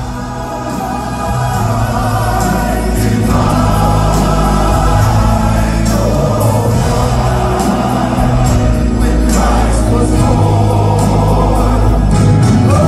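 Live gospel music: a vocal group and choir singing in harmony over a band with drums and a heavy bass.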